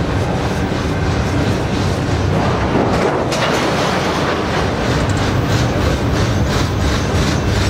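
Freight train of autorack cars rolling past at steady speed, a steady rumble of steel wheels on rail. In the second half comes a regular clickety-clack of about three clicks a second.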